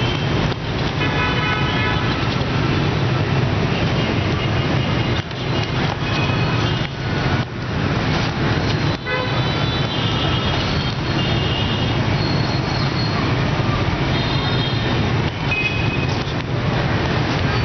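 City street traffic: a steady rumble of motorbike and car engines with frequent short horn toots sounding again and again.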